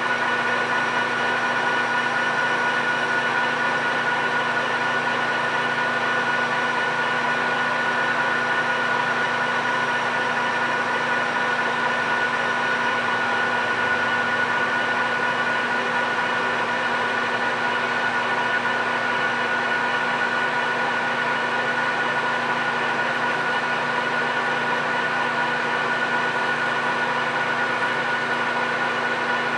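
PM1660 manual engine lathe running steadily at about 600 RPM, a constant gear whine over the motor hum, while a carbide insert takes a turning pass on a 6061-T6 aluminum bar.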